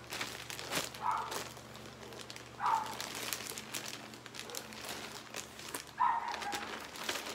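Clear plastic garment bag crinkling and rustling in irregular crackles as it is handled and opened. Three brief mid-pitched sounds break in, about a second, three seconds and six seconds in.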